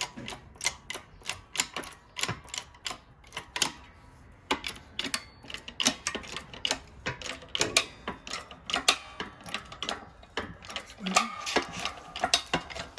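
A quick, uneven run of sharp metallic clicks and taps, a few every second, as a press is worked to push the worn original rubber bush out of a rear toe arm.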